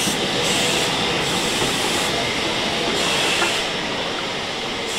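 Steam train's tender and coaches rolling slowly past along the platform, with a steady hiss of steam over the running noise.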